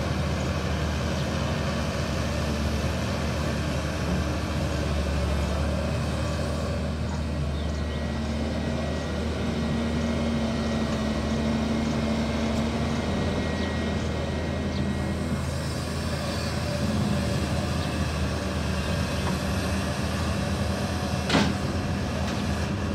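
Cat 320C hydraulic excavator's diesel engine running steadily under working load while the machine digs and swings its bucket, with one sharp knock near the end.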